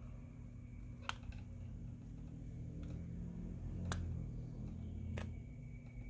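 Three small sharp clicks of a Phillips screwdriver and a tiny screw against a phone's frame as the screw is being fitted, over a faint steady low hum.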